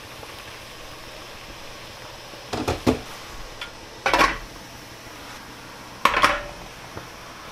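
Stainless steel steamer tiers and lid clanking and scraping against the pot rim as they are stacked onto a pot of boiling water: three short bouts of metal clatter about two seconds apart, over the steady hiss of the rolling boil.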